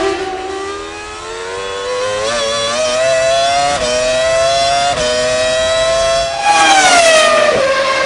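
Onboard sound of a 2000 BAR-Honda Formula One car's Honda V10 at high revs: the engine note climbs steadily under acceleration, drops sharply at two quick upshifts a little past the middle, then gets louder with its pitch falling near the end.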